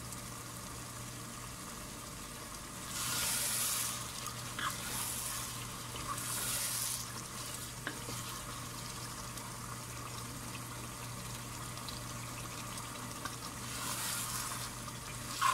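Chicken curry cooking in a pot on a gas stove, stirred with a wooden spatula: a low steady sizzle, with louder swishes of stirring about three seconds in, a few times in the middle, and again near the end.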